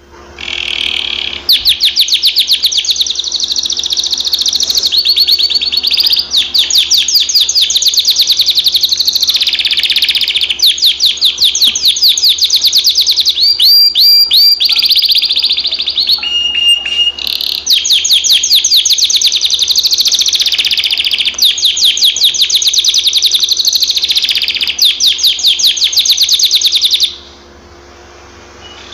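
Canary singing: long, high trills of rapidly repeated notes, changing phrase every few seconds. The song stops about two seconds before the end.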